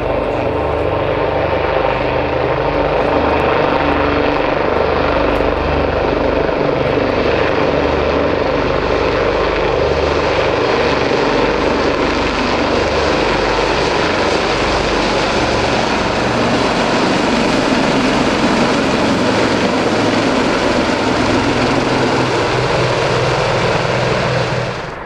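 A formation of four Westland Lynx helicopters flying past: the fast, even chop of the main rotors under a broad turbine rush that swells as they pass. The sound cuts off abruptly near the end.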